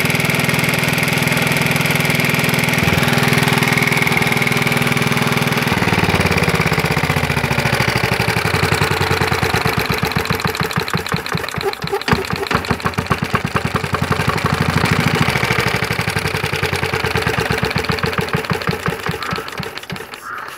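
Single-cylinder Johnson Iron Horse engine running steadily. About six seconds in it is throttled down at the carburetor to a slower, lumpy idle with each firing beat distinct, and it fades away near the end.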